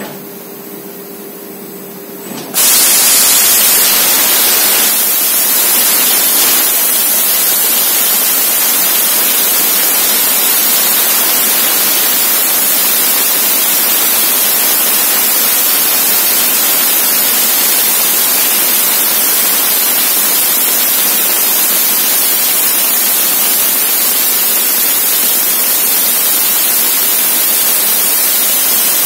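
4000 W laser cutting machine cutting 10 mm stainless steel: after a quieter machine hum, a loud, steady hiss starts suddenly about two and a half seconds in. This is the assist gas jetting from the cutting nozzle through the cut.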